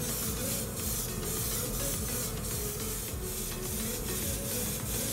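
Gravity-feed airbrush spraying paint: a steady hiss of air and atomised paint that dips briefly a few times a second.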